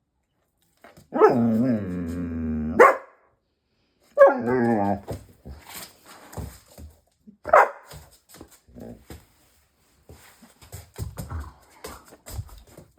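Dutch Shepherd vocalizing back while being scolded: a long drawn-out yowling bark about a second in whose pitch falls, a shorter one around four seconds in, a single sharp bark near the middle, then softer scattered noises.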